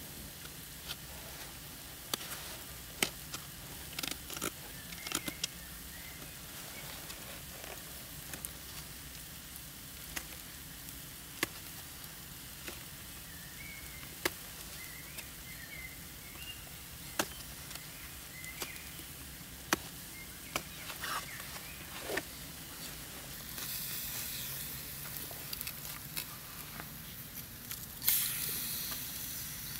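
Knife whittling wood: scattered sharp cuts and scrapes. In the last few seconds a steak sizzles in a hot pan over the fire, the sizzle jumping louder as the meat is laid in.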